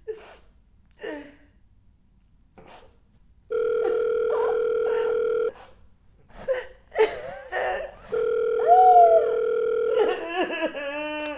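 Telephone ringback tone of an outgoing call: two steady tones, each about two seconds long, heard from the handset. Between them a woman sobs and sniffles, and near the end she breaks into a wavering, wailing cry.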